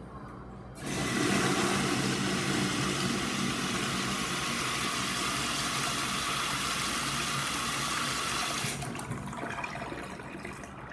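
Crane Plumbing Manhattan urinal flushing: water rushes in suddenly about a second in and runs steadily for about eight seconds, then shuts off and fades to a trickle near the end.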